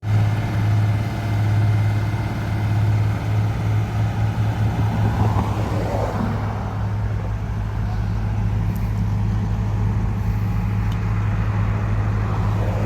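Heavy diesel construction machinery at an asphalt paving job running steadily with a constant low engine hum.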